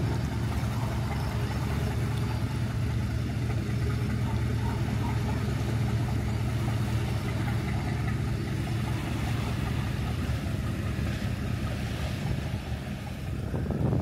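A motor yacht's engines running with a steady low drone as it cruises past, under a steady hiss of wind and water.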